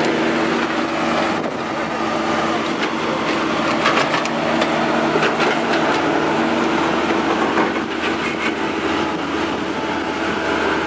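Diesel engine of a Cat 308 compact excavator running steadily while it works in mud, with a run of sharp metal clanks in the middle.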